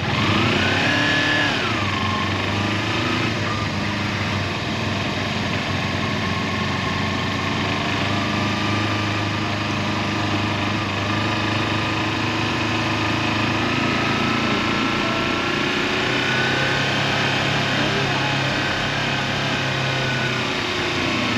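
Motorcycle engine running steadily under a constant rushing noise, with a brief rise and fall in pitch near the start.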